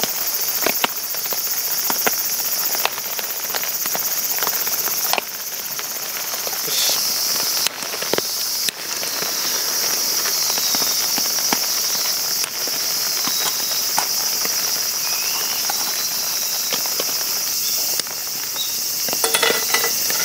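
A steady high insect chorus from cicadas and crickets fills the background. Scattered short clicks and light knocks come and go over it.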